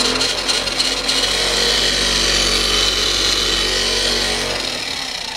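Electric motor and gear drive of a LiteHawk Sprint two-wheel-drive RC short-course truck running flat out with the rear wheels spinning in the air: a loud, steady whir that flutters in the first second, then holds and eases off a little toward the end.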